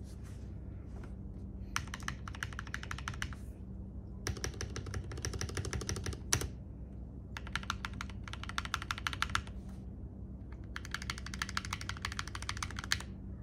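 Typing on a Keydous NJ80 mechanical keyboard with lubed NovelKeys Cream switches, a brass plate and a plastic case. Rapid keystrokes come in about four bursts of roughly two seconds with short pauses between, and one louder stroke comes about six seconds in.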